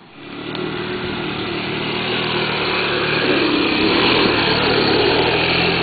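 Quad bike (ATV) engine running hard under load as it climbs a steep dirt slope, growing louder over the first few seconds.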